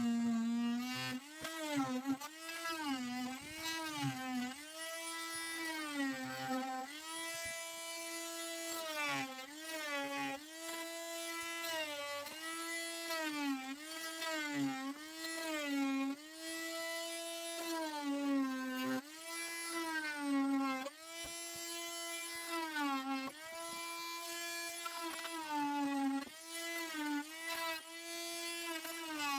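Electric power saw cutting into a washing machine tub: a high motor whine that sags in pitch under load every second or two and picks up again as the cut eases.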